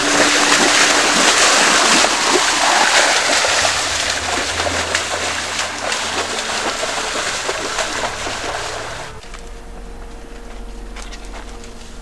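Loud, continuous splashing of someone wading quickly through a shallow muddy stream. It cuts off suddenly about nine seconds in, leaving a quieter background with a steady low hum.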